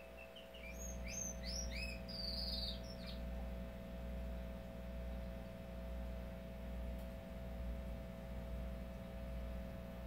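A male domestic canary sings one short phrase of quick, curving chirps and trills for about three seconds, then falls silent. A steady low hum runs underneath throughout.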